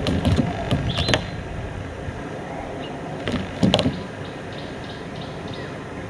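Southern yellow-billed hornbill's bill and wings knocking and scraping against a car's windscreen and wiper. The sharp knocks and scrapes come in two clusters, over about the first second and again near the four-second mark.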